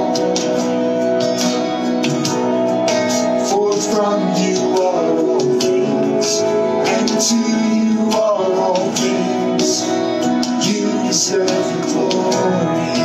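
Worship song: guitar accompaniment with singing voices.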